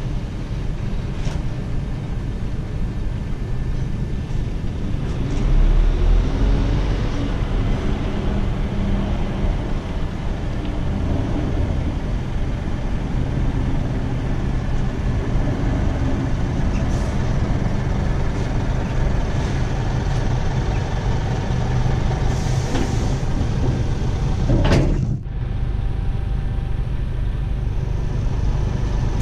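Scania R450 truck's engine and road noise running steadily while driving. Near the end there is one short hiss of air.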